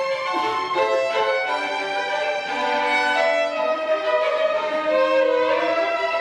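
Two violins playing Argentine music together, a melody of held and gliding notes over a second, lower line.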